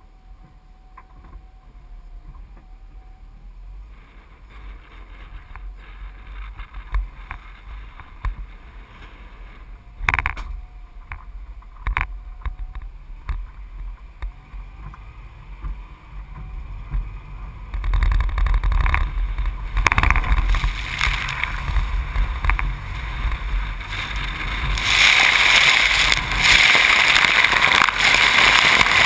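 Road and wind noise from a roof-mounted camera on a truck driving on a wet road, with a low rumble that grows louder from about 18 s in, and two sharp knocks around 10 and 12 s. From about 25 s in, a loud rushing hiss as the truck ploughs through standing water and spray pelts over the hood and camera.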